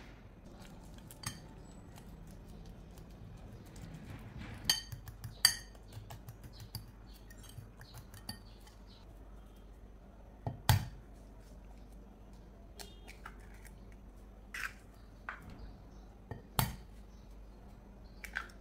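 A metal fork mashing sliced bananas in a glass bowl, with scattered clinks and knocks of the fork against the glass. The loudest knocks come a little past halfway and again near the end.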